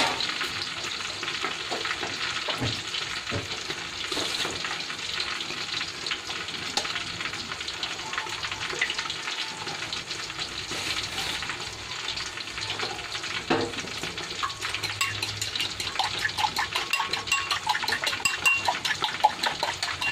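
Sautéed bitter melon sizzling steadily in a wok over a gas flame. From about two-thirds of the way in, a fork clicks rapidly against a bowl, beating eggs.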